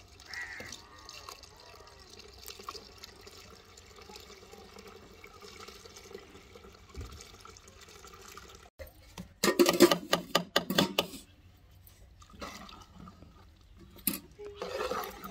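Fresh cow's milk pouring in a steady stream from a steel bucket into a large aluminium pot of grated carrots. After about nine seconds comes a loud burst of metal clanks lasting about two seconds.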